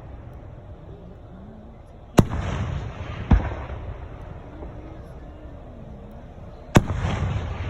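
Fireworks exploding: three sharp booms, about two seconds in, a second later, and near the end, each trailing off in a rumbling echo.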